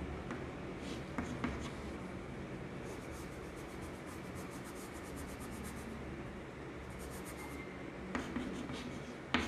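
Chalk writing on a chalkboard: short scratching strokes and light taps as a molecular structure diagram is drawn, with quick runs of strokes about three and seven seconds in.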